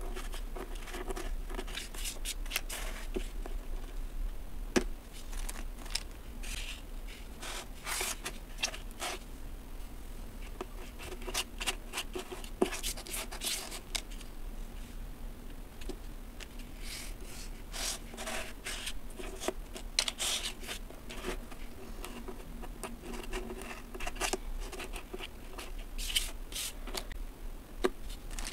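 Kinetic sand being pressed, crumbled and scraped off plastic sand molds by hand: a continuous run of soft crunching and scraping rustles, with an occasional sharp tick.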